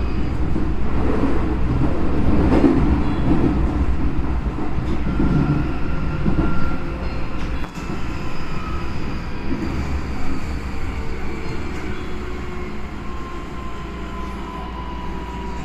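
Keisei 3200-series electric train running, heard from inside the car: steady wheel-and-rail rumble with a faint motor whine. In the second half the whine falls slowly in pitch as the train slows.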